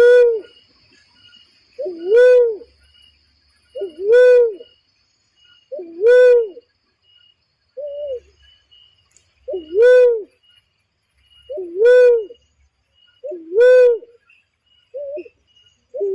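Barred cuckoo-dove (uncal loreng) calling: a deep, hooting coo that rises then falls in pitch, repeated about every two seconds, with a couple of shorter notes among them. Faint high thin notes sound in the background.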